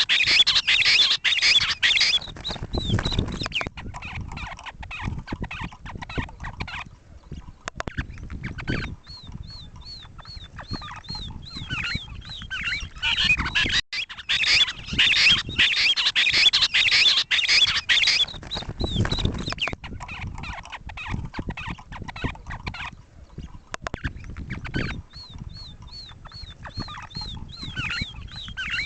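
Game bird calls, the recording sold as the 'lavuka' call. Loud bouts of harsh, rapidly repeated calls lasting a few seconds alternate with runs of thin, high, falling notes, about three a second.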